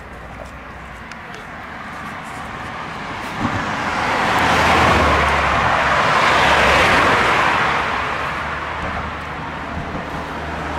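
A road vehicle driving past close by, its tyre and engine noise swelling to a peak about halfway through and then fading away.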